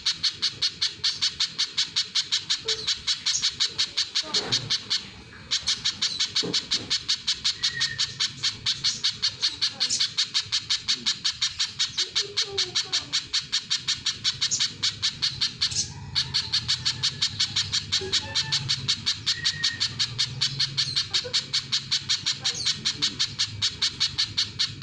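Little spiderhunter calling: a fast, unbroken run of sharp, high chip notes at about five a second, pausing briefly about five seconds in and again just past the middle.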